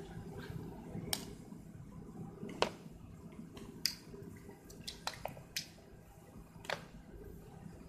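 Scattered sharp clicks and taps, about ten in all, from small tools and wires being handled, over a steady low background hum. The loudest click comes about two and a half seconds in, with a quick cluster around five seconds.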